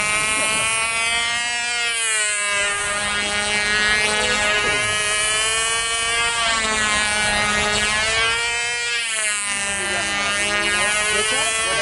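Small model-airplane engine of a control-line plane running flat out with a high, buzzing note. Its pitch and loudness swell and sag in a slow repeating cycle as the plane circles the pilot on its lines.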